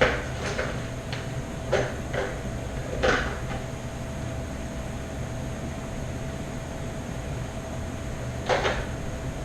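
A few short knocks and clatters, several in the first three seconds and one more near the end, over a steady background hum.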